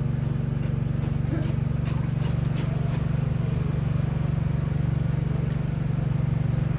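Small engine-driven water pump running steadily, dewatering the pit through a hose; a low hum with a fast, even pulse.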